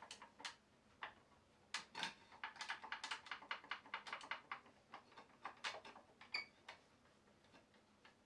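Faint run of light wooden clicks and taps as the maple seat pieces of a Roubo-hinge folding chair are shifted by hand. The clicks come thickest about two to five seconds in, then thin out.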